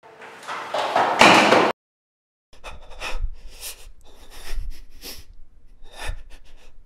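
A noise swells quickly to a loud peak and cuts off suddenly. After a brief silence come irregular footsteps with low thuds about every second and a half, mixed with rustling.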